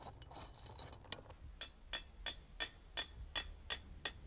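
A steady run of light, sharp taps or clicks, about three a second, starting about a second in.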